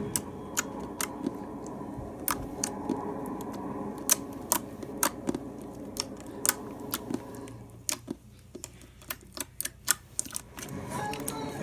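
Slime being pressed and worked by hand, making sharp irregular clicks and pops, a few per second, over a low steady background.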